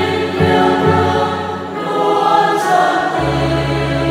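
Church choir, mostly women's voices, singing a Catholic hymn in Vietnamese with long held notes, over steady low notes underneath that change pitch a few times.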